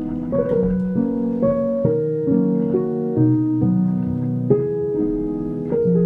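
Background piano music: a calm melody with notes struck about twice a second and left to ring.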